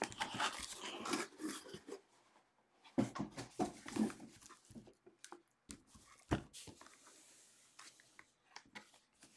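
Sealed trading-card boxes being lifted out of a cardboard case and set down on a table: cardboard rustling and sliding with a few soft knocks, the loudest about three seconds in and another a little past six seconds.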